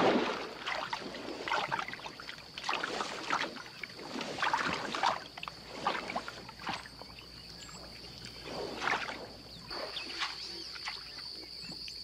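Water sloshing and squelching in swells about every second and a half as a man bounces on a floating mat of peat, the 'trembling earth' giving way under his weight. A steady high insect drone runs underneath.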